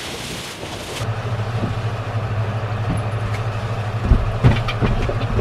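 Steady low machine hum inside a sailboat cabin, with several heavy thumps of feet coming down the companionway steps from about four seconds in. A second of even hiss opens it before the hum cuts in.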